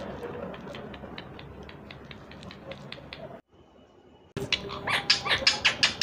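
Indian ringneck parrot chattering in loud, rapid, high-pitched calls from about four and a half seconds in. Before that there is only faint clicking, and then about a second of silence.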